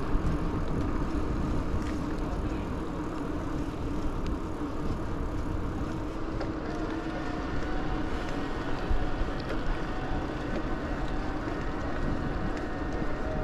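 Riding noise from an electric bicycle moving along an asphalt path: steady wind rumble over the action camera's microphone and tyre rush, with a steady hum from the Bosch CX mid-drive motor; a faint higher whine joins about halfway through.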